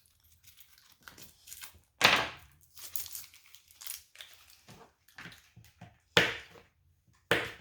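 Plastic wrapper of a jerky meat stick being torn open and crinkled: irregular crackling and rustling, with louder bursts about two seconds in and twice near the end.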